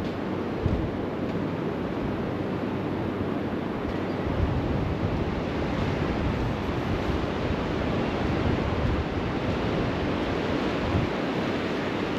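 Sea waves washing onto a sandy beach in a steady rush, with wind buffeting the microphone in gusts.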